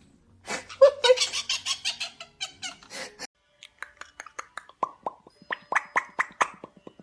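A quick series of clicks and pops in two runs: a dense, busy patter for the first few seconds, then after a short pause a sparser string of sharp, ringing clicks.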